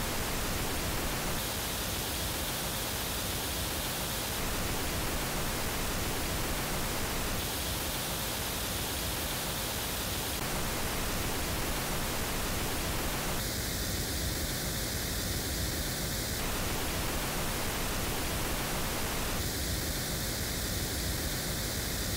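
Pink noise, a steady hiss, switching about every three seconds between the unfiltered original and the same noise shaped by the DALI Rubikore 6 floorstanding speaker's measured anechoic response. In the first half the speaker is on axis, with a brighter, treble-heavy top end that comes across as sibilant. About halfway through it changes to the speaker turned 30 degrees off axis.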